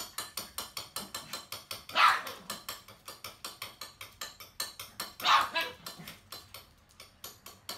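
Papillon dogs barking twice, about two seconds and five seconds in, excited by the signal that their meal is coming. A rapid, even clicking, about seven a second, runs underneath.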